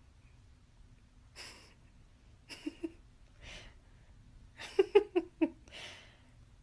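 A person stifling laughter: several short breathy snorts through the nose, then a quick run of about four short chuckles a little before the end.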